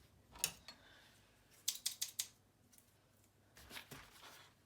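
A few sharp, short clicks, like small hard objects being handled or snipped: one about half a second in, a quick run of four or five about two seconds in, and a few softer ones near the end.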